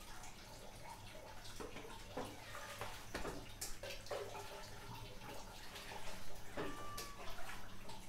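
Tamarind-leaf soup boiling in a pan, bubbling and popping, with water spinach leaves rustling as handfuls are dropped in.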